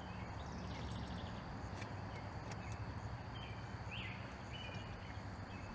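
Quiet outdoor background: a steady low hum with a few faint high chirps and a short falling chirp about four seconds in. No clear hiss or gurgle is heard from the partly opened radiator cap.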